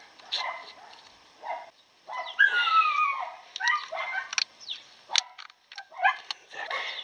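A dog whining in several high cries that fall in pitch, the longest a couple of seconds in. Sharp metallic clicks of pliers working a brake-shoe spring come later.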